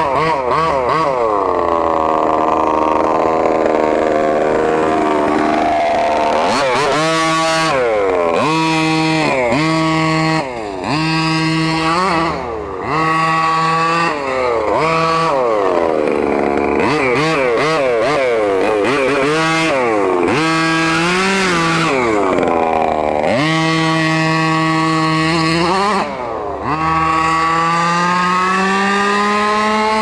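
A 1/5-scale Redcat monster truck's small two-stroke gas engine revving up and down over and over as the truck is driven, the pitch climbing and falling every second or two, with a few brief drops back toward idle and a long climbing rev near the end.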